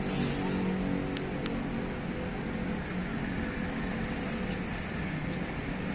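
Steady engine hum with a wash of outdoor noise, the hum slowly fading over the first few seconds.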